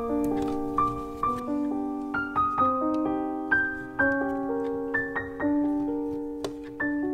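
Background piano music: a slow, gentle piece of struck notes and chords, each ringing and fading before the next.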